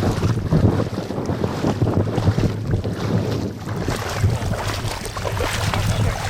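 Wind buffeting the microphone outdoors, an uneven rumbling noise that rises and falls in gusts.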